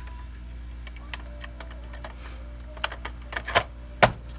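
Plastic clicks and knocks as a PS4 power supply unit is set into the console chassis and pressed down into place: a run of clicks about three seconds in, then one loudest knock near the end.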